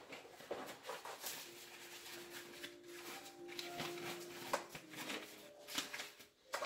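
Irregular clicks, knocks and rustles of hands working with utensils and a cloth at a kitchen counter, with a few soft held notes underneath.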